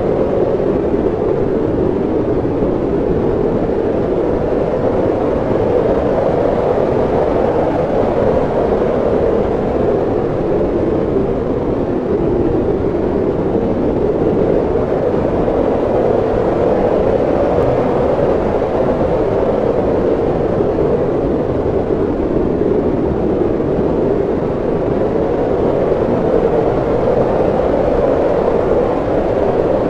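Hurricane-force wind: a loud, steady, deep rush that swells and eases slowly every several seconds.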